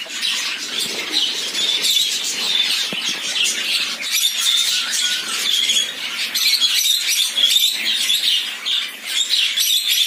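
Mixed flock of caged finches, budgerigars and lovebirds chirping and chattering all at once, a dense, continuous high-pitched twittering.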